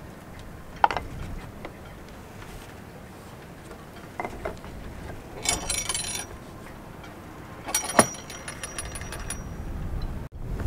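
Threaded steel bar clinking and rattling with a ringing metallic sound as it is worked down through the wooden bowsprit: a sharp knock about a second in, a couple of softer knocks near the middle, then two runs of quick metallic clicks.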